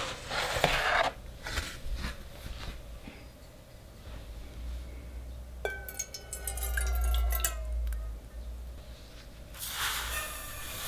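An offset spatula scrapes across batter at the start. About six seconds in, water is poured from a glass jug into a ceramic saucepan, splashing and ringing for about two seconds. Near the end, granulated sugar pours into the pan with a grainy rush.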